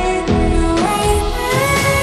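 Background music with sustained melodic notes and a steady beat.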